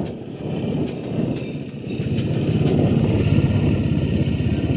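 Bajaj Dominar 400's single-cylinder engine running as the motorcycle rides slowly, heard from the saddle along with road and wind noise. The sound grows louder from about two seconds in.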